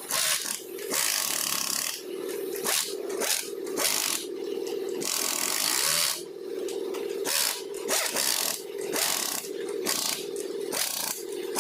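A power tool switched on and off in repeated short bursts, a steady motor tone alternating with stretches of hiss.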